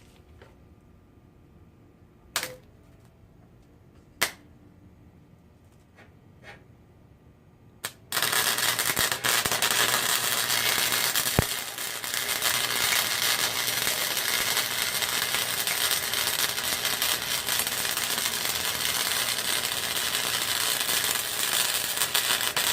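An electric welding arc crackling without a break for about fifteen seconds. It starts about eight seconds in, after a few sharp isolated clicks.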